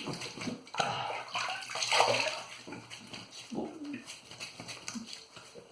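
Water splashing as hands scoop it onto a face to wet the skin before shaving, in several uneven splashes.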